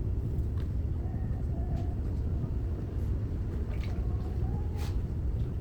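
Electric potter's wheel spinning with a steady low hum, with a few faint wet clicks from hands working the clay.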